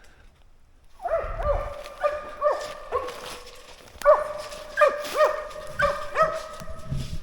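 A dog barking repeatedly, about ten barks in a row, starting about a second in.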